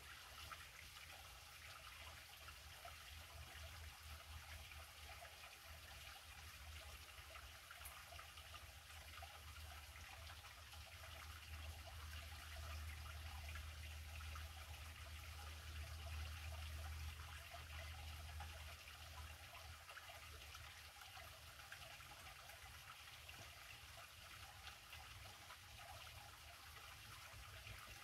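Near silence: faint, steady outdoor ambience with an even hiss and a low rumble that grows louder through the middle.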